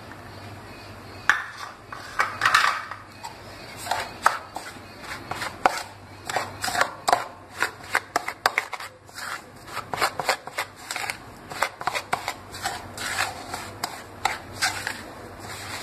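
Steel spoon scraping and clinking against a ceramic bowl as it mixes crumbly flour, sugar and butter, in quick irregular strokes starting about a second in.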